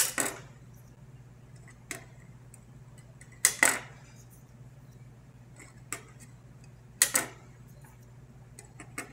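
Flush cutters snipping off the excess leads of freshly soldered PNP transistors on a circuit board: about eight sharp snips, every second or two and sometimes in quick pairs, over a faint steady low hum.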